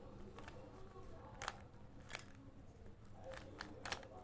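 Faint, irregular plastic clicks of a Rubik's Cube's layers being turned by hand, with about four sharper clicks through the second half.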